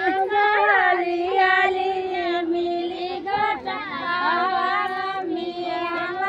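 Several high voices, women and perhaps girls, singing a traditional wedding song together, with overlapping lines and long held notes.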